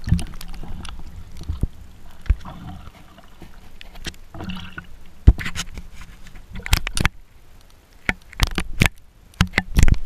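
Irregular close knocks and clicks against a GoPro camera housing as it is handled on a kayak, with water splashing and dripping around it.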